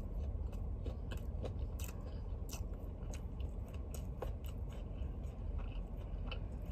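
A person chewing a mouthful of fried chicken sandwich close to the microphone: irregular crunching and mouth clicks, a few each second.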